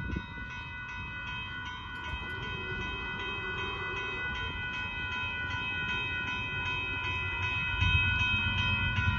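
Railroad grade-crossing warning bell ringing steadily in evenly repeated strokes, the sign that the crossing is activated for an approaching train. A low rumble builds from about eight seconds in as the train draws near.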